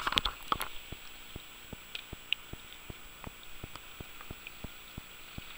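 Faint, steady hiss of a river running over a rocky riffle, with scattered light ticks.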